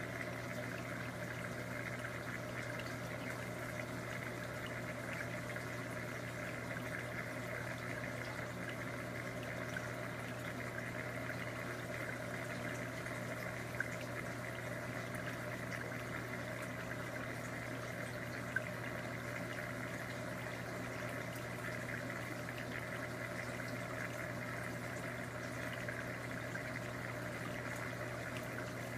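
Steady running water of a reef aquarium's circulation, a constant trickling rush over a low, even hum of its pumps, with two faint ticks partway through.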